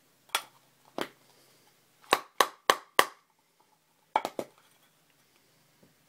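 Sharp taps and knocks on a tin can of moist snuff: two single taps, then four quick ones about a third of a second apart, then a cluster of three.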